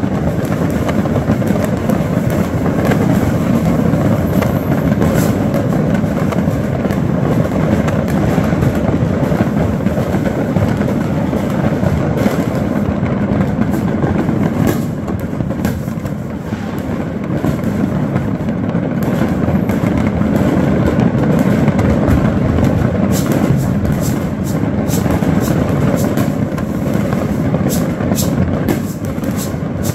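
Many firecrackers and aerial fireworks going off all around at once, merging into a continuous crackling din with sharp pops scattered through it. The pops come more often in the last several seconds.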